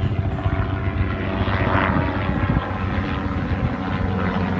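Helicopter flying overhead, its rotor chopping in a steady pulse.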